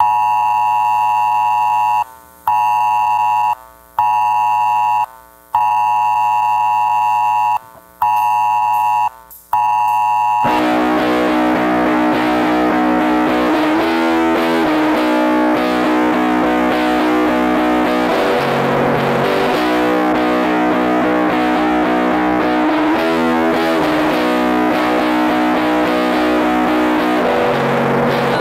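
Lo-fi punk rock recording. It opens with a held, buzzing chord that cuts out briefly about six times. About ten seconds in, the full band comes in with distorted electric guitar.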